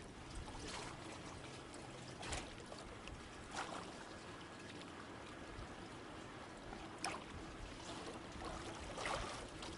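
Faint pool water lapping and sloshing around a lifeguard moving through the water, with a few short splashes.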